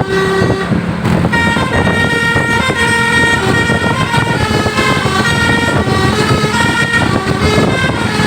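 Bus 'telolet' horns (Basuri multi-tone horns) playing a melody: several notes sound together and step to new pitches every few tenths of a second. Engine and road noise run underneath.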